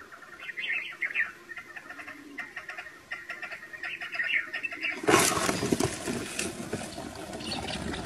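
See-see partridges chirping and calling softly in a flock. About five seconds in, a sudden loud rush as a net trap drops over them, followed by continuous flapping and scrambling of the caught birds.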